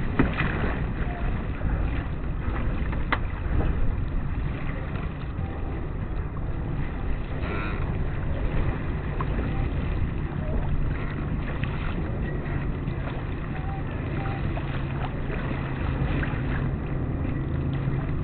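Steady wind rush on the microphone aboard a sailboat under way under sail, mixed with water noise, with a few light clicks.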